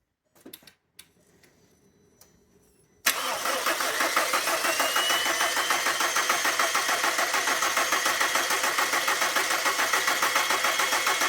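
A few faint clicks, then about three seconds in the starter of a 2002 VW Beetle engages and cranks the engine steadily with a quick, even pulsing and a brief rising whine, the engine not yet catching.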